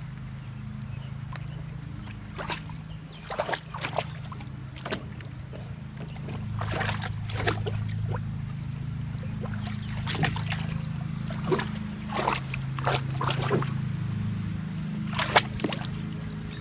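Yellow Labrador retriever splashing and sloshing in the shallow water of a plastic kiddie pool, in irregular bursts with pauses between. A steady low hum runs underneath.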